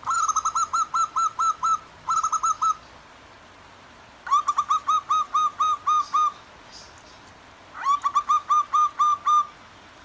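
Zebra dove (perkutut) calling in three runs of rapid, evenly repeated cooing notes, over a faint steady rush of flowing water.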